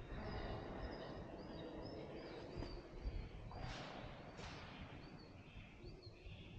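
Small birds chirping repeatedly in short high notes over a steady low rumble of background noise, with two brief louder swishing sounds about four seconds in.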